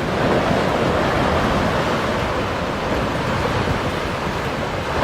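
Steady rushing noise, like heavy surf or strong wind, with no distinct impacts.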